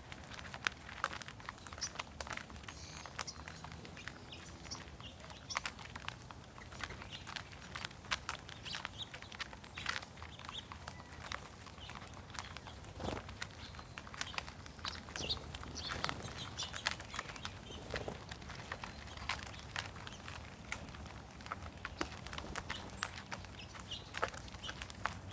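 A flock of feeding mourning doves and small songbirds: many quick scattered taps and rustles with occasional wing flutters, and short high chirps from the small birds.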